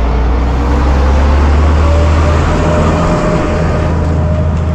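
Isuzu pickup truck running, a loud steady low rumble with a faint whine that slowly rises in pitch partway through.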